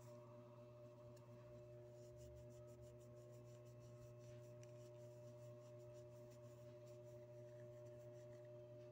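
Faint rubbing of a polishing cloth on a small metal collar pin, over a steady low hum; near silence overall.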